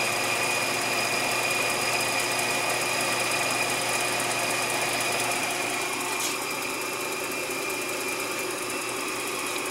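Incinolet Carefree Deluxe incinerating toilet's blower motor running steadily, a constant hum with a high whine over it, easing slightly about six seconds in.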